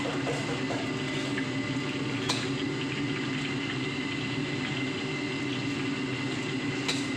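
Hot cooking oil bubbling in a wok under a steady hum, while a wire-mesh strainer is drawn through it; a light metal tap about two seconds in.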